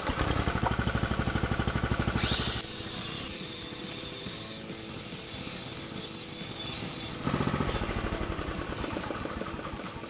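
Old go-kart's small gas engine running with a fast, even chugging. It is louder for the first two and a half seconds and again from about seven seconds in, quieter in between.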